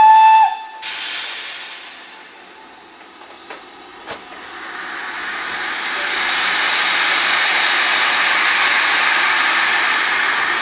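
Steam whistle of Southern Railway U class 2-6-0 No. 31806 gives one short, loud blast. Then a steady hiss of escaping steam from the locomotive's open cylinder drain cocks builds up as it moves off.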